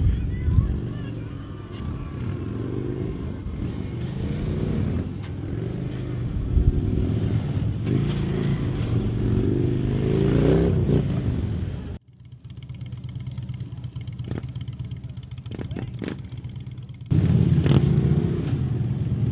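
Harley-Davidson police motorcycles' V-twin engines running at low speed, the revs rising and falling as the riders weave through tight cone turns. The sound drops to a quieter stretch about two-thirds of the way through, then comes back louder near the end.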